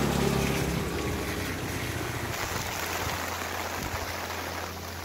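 Steady rushing noise of a swollen river in flood under rain, with a low hum over the first two seconds.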